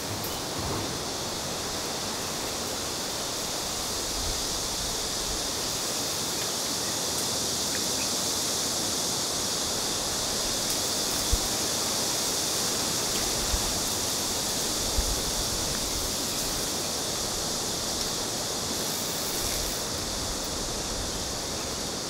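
Steady outdoor hiss, strongest in the high register, with a few brief faint knocks near the middle.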